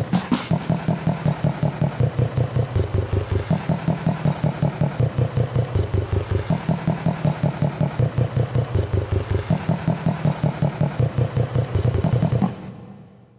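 YTPMV-style remix: a chopped audio sample looped and pitch-shifted into a fast, even, buzzing pulse with a steady low pitch, fading out near the end.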